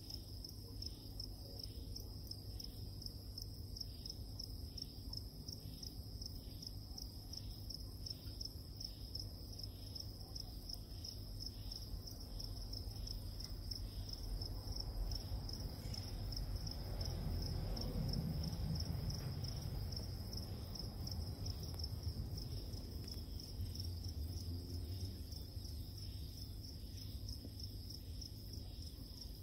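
Steady high-pitched insect trill over a low background rumble that grows louder for a few seconds in the middle.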